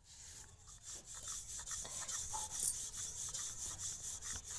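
Wooden rolling pin rolling out a stuffed chana dal paratha on a flour-dusted board: a run of repeated rubbing, scraping strokes as the pin goes back and forth over the dough.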